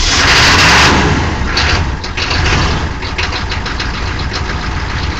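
Chevy 6.2 L V8 diesel running just after a cold start, its revs rising and falling a couple of times in the first three seconds as the throttle is pumped, then settling into a steady idle with diesel knock.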